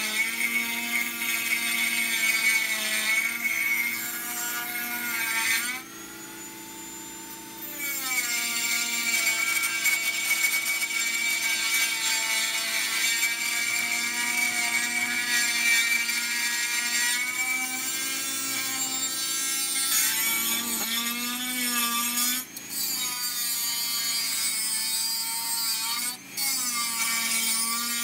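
Dremel rotary tool running at high speed and grinding metal out of an aluminium AR-15 handguard clamp. Its whine sags and recovers in pitch as the bit bears into the metal. It goes quieter for about two seconds around six seconds in and cuts out briefly twice near the end.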